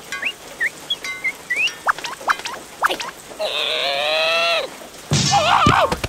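Cartoon larva characters' wordless voice sounds over ticking raindrops: a few short rising chirps in the first two seconds, a long held whining cry from about three and a half seconds in, and a wobbling, warbling cry near the end.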